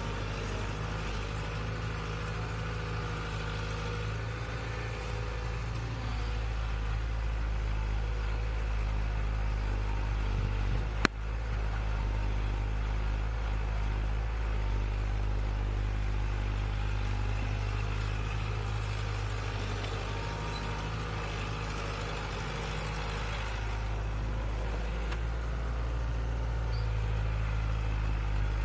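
An engine running steadily at a low hum, with a single sharp click about eleven seconds in.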